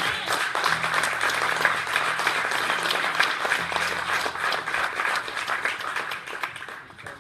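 A congregation applauding: many people clapping together in a dense, steady patter that fades out near the end.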